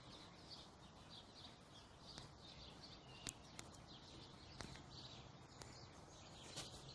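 Faint birds chirping in the background, with a few small clicks.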